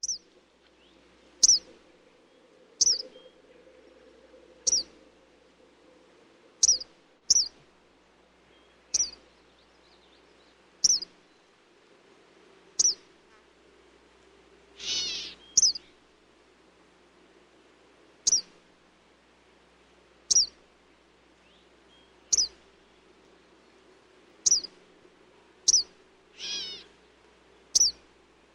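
Eastern kingbird calling: short, sharp high notes repeated about every two seconds, with two longer calls, one about halfway through and one near the end.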